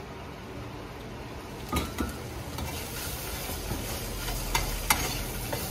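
Small hot dogs sizzling in a frying pan, the frying getting louder and brighter about halfway through as the perforated metal lid is lifted off, with a few sharp metal clinks.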